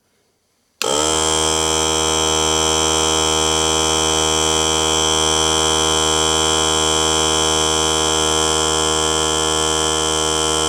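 Small Harbor Freight portable air compressor switching on about a second in and running with a steady, loud buzz.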